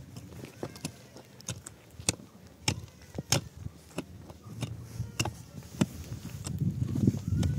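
Long-handled digging tool striking hard, stony dry earth in a hole: a string of sharp knocks about every half second to a second. A low rumble builds in the last few seconds.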